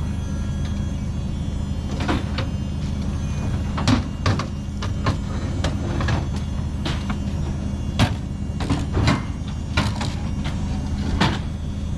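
A steady low engine hum with about a dozen irregular knocks and bangs over it, the loudest about four and eight seconds in, typical of fairground equipment being put together.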